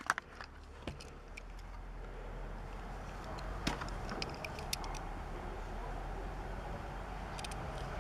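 A few faint scattered clicks and taps of a toy car's plastic blister package being handled and opened, over a steady low hum.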